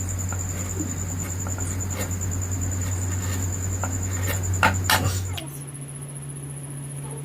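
Scattered sharp taps and clicks of a carving tool working wood, two of them louder just before the five-second mark. A steady low electrical hum runs under them and drops to a different pitch about five seconds in.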